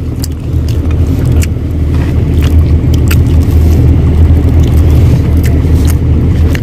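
A loud, steady low rumble, with scattered light clicks and rustles as the phone is handled and brushed by a sleeve.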